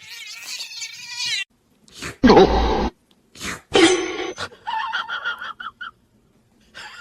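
A cat meowing and yowling in several separate calls with bending pitch, with one short, louder sound about two seconds in.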